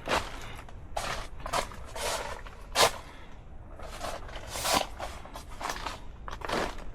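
Footsteps: a dozen or so irregular steps, the loudest about three seconds in.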